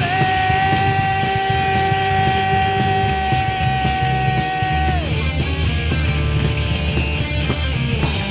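Live heavy rock band playing with distorted electric guitars. A long high note is held for about five seconds, then bends down and drops out while the band plays on.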